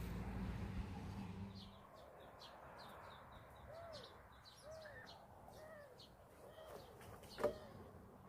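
Faint outdoor birdsong: many small birds chirping rapidly, with a lower, arching call repeated about once a second in the middle. A low rumble fills the first two seconds, and a single sharp knock comes near the end.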